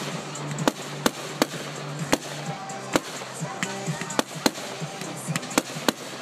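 Aerial fireworks bursting overhead, a quick irregular series of sharp bangs, about two or three a second.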